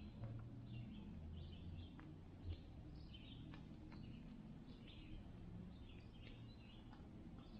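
Faint chirping of small birds, many short high notes coming every fraction of a second, over a low steady rumble, with one soft knock about two and a half seconds in.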